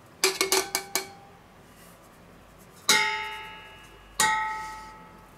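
Metal sieve and stainless steel bowls knocking together while flour is sifted: a quick run of light taps in the first second, then two sharp metallic knocks about a second and a half apart, each ringing out and fading over about a second.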